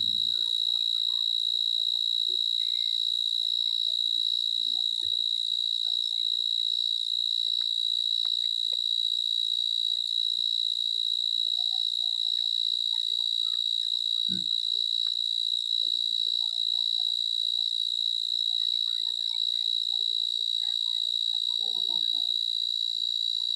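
A steady, high-pitched insect trill that runs without a break or change in pitch.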